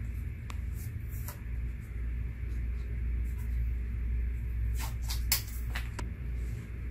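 Blue painter's tape being pulled and pressed down onto a paper setting circle: a few brief rips and rustles, a sharper cluster about five seconds in, over a steady low hum.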